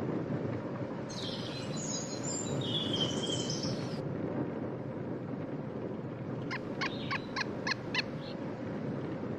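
Birds singing over a steady low rumble: a run of high chirping about a second in that stops suddenly near the middle, then about seven short calls in quick, even succession near the end.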